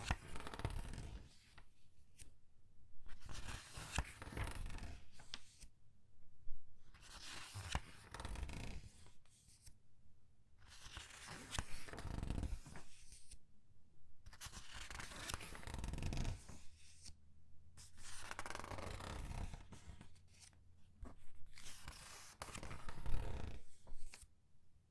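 Comic book pages being turned and squeezed by hand: a string of paper rustles and crinkles, each lasting a second or two, with short pauses between the turns.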